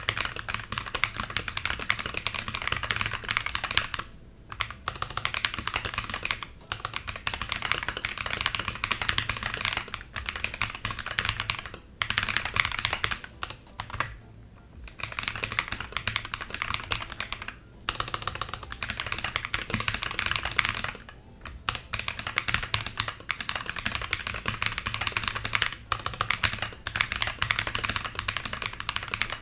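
Typing on a mechanical keyboard fitted with KTT Mallo light tactile switches, a dense run of key strikes with a clacky, loud bottom-out from their long stems, broken by several brief pauses.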